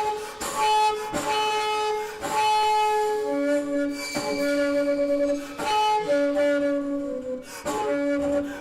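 Amplified bass flute playing a series of held notes, each about a second long and started with a sharp attack. The notes step down to a lower pitch a little past three seconds in.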